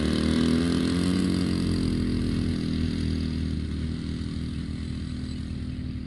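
DLE 20cc single-cylinder two-stroke gas engine of a large RC model plane running as the plane taxis away across grass, its sound fading gradually.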